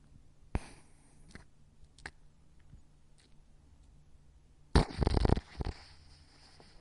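A dog snoring: a few faint short snuffles, then one loud snore lasting over half a second about five seconds in, followed by a shorter one.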